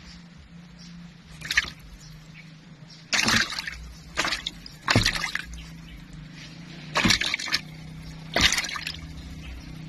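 Shallow muddy water in a plastic tub splashing and sloshing in short bursts, about six times, as the animals in it move. A low steady hum runs underneath.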